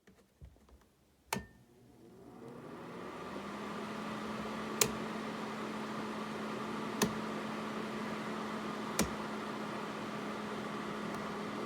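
Portable ceramic space heater switched on with a click and a short beep, its fan spinning up over about two seconds into a steady whoosh with a low hum. Three sharp clicks come about two seconds apart while it runs.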